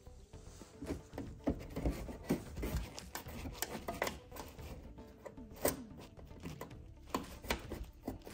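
Rubbing and scraping with scattered irregular clicks as fingers push a metal clip in behind a felt wheel-well liner, over background music.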